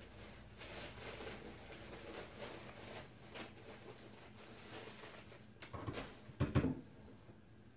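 Soft rustling and handling sounds, then a short cluster of louder bumps about six seconds in.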